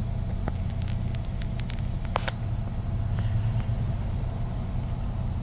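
Car engine running, heard from inside the cabin as a steady low rumble with a faint steady hum, with a few small clicks and one sharper click about two seconds in.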